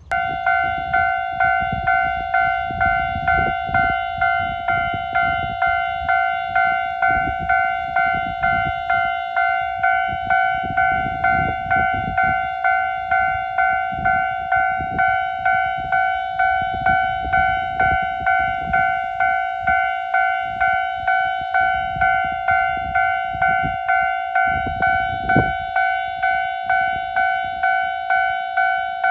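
Japanese railway level-crossing warning bell, starting suddenly and ringing on in a steady, even beat of about one and a half dings a second, each ding dying away before the next. It signals that a train is approaching the crossing.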